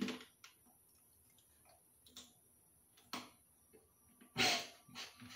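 Chicken crisps being chewed with the mouth closed: a few separate, irregularly spaced crunches, the loudest about four and a half seconds in.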